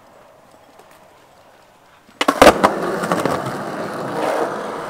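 A skateboard lands on concrete with a few sharp clacks about two seconds in, then its wheels roll steadily over the concrete.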